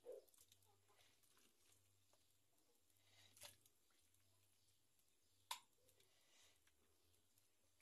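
Near silence, broken by a few faint soft knocks and wet squishes as pieces of raw chicken are dropped by hand into a clay cooking pot: one near the start, one about three and a half seconds in, and a sharper click about five and a half seconds in.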